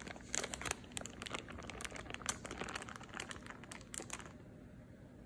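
Parchment paper crinkling and crackling as it is peeled off a baked cake layer, stopping about four seconds in.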